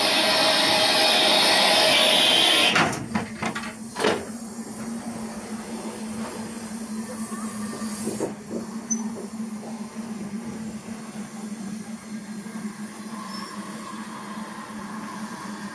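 Steam locomotive 75078, a BR Standard Class 4 4-6-0, hissing loudly with escaping steam. The hiss cuts off sharply about three seconds in, followed by a few short knocks and a quieter low steady hum.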